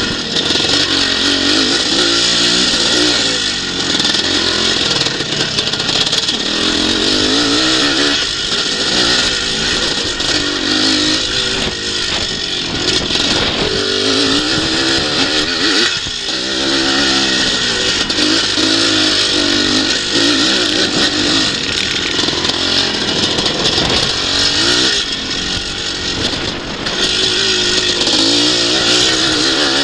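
Twinshock motocross bike engine racing on a dirt track, its pitch rising and falling again and again as the throttle is opened and shut through the corners, with a steady rush of wind over it.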